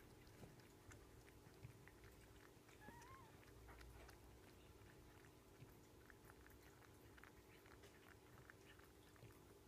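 Faint wet licking and smacking clicks of a Maine Coon mother cat grooming her newborn kitten, very quiet over a low room hum. A brief faint squeak comes about three seconds in.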